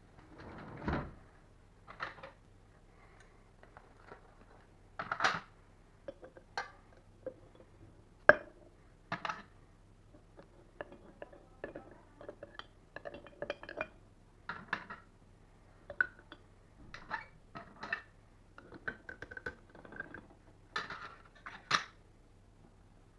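Irregular clinks, taps and knocks of small hard objects and tools being handled, the sharpest about eight seconds in, over a faint steady low hum.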